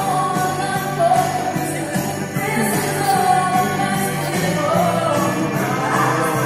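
Festive Christmas-style music with jingle bells shaking on the beat over a steady bass line and a singing voice, played for a light show.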